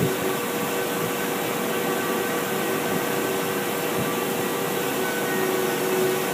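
Steady hum of running machinery: an even whirr with a few steady tones, unchanging throughout.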